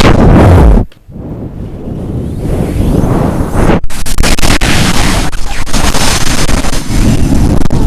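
Strong wind blowing hard and buffeting the microphone, a loud, deep rushing noise. About a second in it drops off suddenly, then builds back up over the next couple of seconds.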